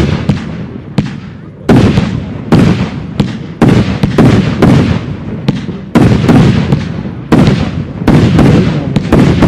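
Aerial fireworks bursting in quick succession: a string of sharp bangs, roughly one a second, each dying away in echo.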